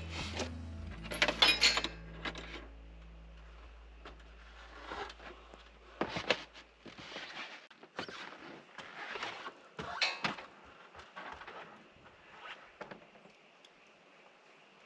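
Scattered light clinks and knocks of metal hardware being handled during work at the edge of a corrugated metal roof, under a low steady hum that fades away in the first half.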